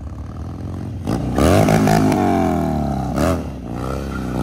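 Cruiser motorcycle engine revved hard about a second in as the bike is spun in donuts, its pitch sagging over the next two seconds, with another short, sharp rev near three seconds.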